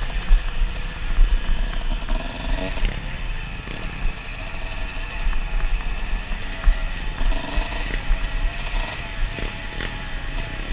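Dirt bike engine running as it rides up a rocky trail, with heavy wind rumble on the helmet camera's microphone and occasional knocks.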